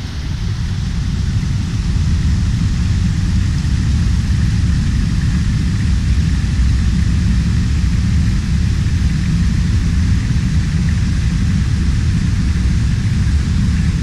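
Stream water rushing over and between rocks, a steady low rumble with a fainter hiss above it.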